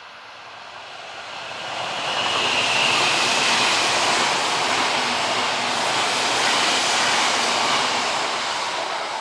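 Odakyu 50000-series Romancecar VSE passing on the line. The rolling noise builds over about two seconds, holds loud, then begins to fade near the end.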